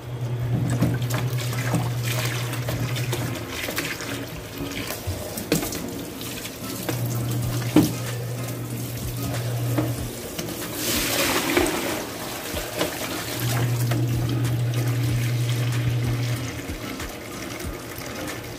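Tap water running and splashing into a plastic bowl of raw lamb pieces in a stainless-steel sink as the meat is rinsed, with a few sharp knocks and a louder splash about eleven seconds in. A low steady hum comes and goes in stretches of about three seconds.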